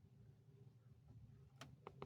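Near silence: room tone with a faint low hum, and two faint clicks about one and a half seconds in.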